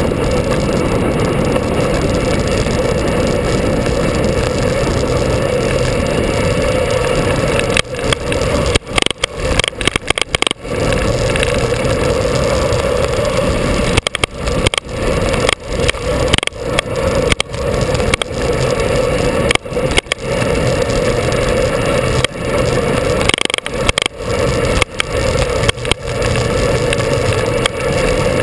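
A moving vehicle's running noise mixed with wind rush on a vehicle-mounted camera's microphone, a steady, loud noise. From about eight seconds in it is broken by many short, sudden drops in level.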